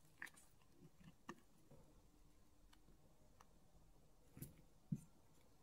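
Near silence broken by a few faint, short clicks and taps, about five, the sharpest near the end, from small metal parts of a SRAM Guide brake lever being handled and a driver being set into a bolt on the lever body during reassembly.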